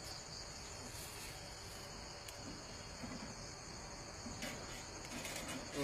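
Steady, high-pitched chorus of insects, with a few faint rustles or knocks near the end.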